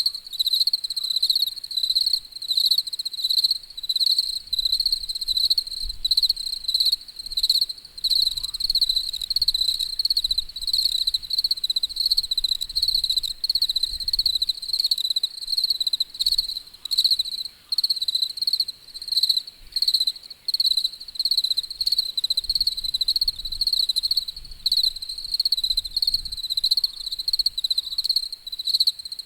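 Insects chirping in a continuous chorus: a high song pulsing several times a second on one steady pitch.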